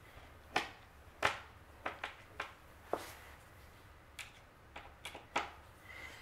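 Hand screwdriver turning screws into a laminated flat-pack desk panel: about a dozen sharp, irregular clicks and taps.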